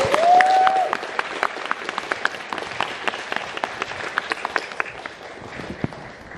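Concert audience applauding, with a short voiced cheer from someone in the crowd at the very start. The clapping thins to a few scattered claps toward the end.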